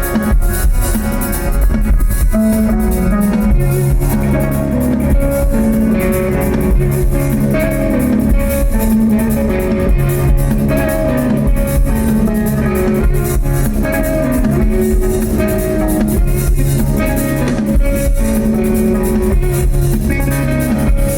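Rock band playing live: guitar riffing over moving bass notes and a drum kit.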